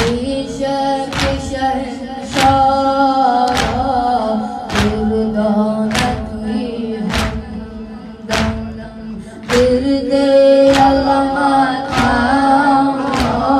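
A Shia mourning lament (nauha) sung in long, bending phrases, with a group's chest-beating (matam) landing as a sharp slap in steady time, about once every 1.2 seconds.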